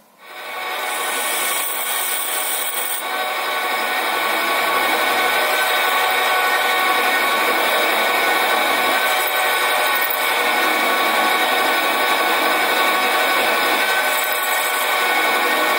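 Sieg SC4 metal lathe starting up about a second in, then running steadily with a whine, while a twist drill in the tailstock bores a hole through the centre of a cast flywheel.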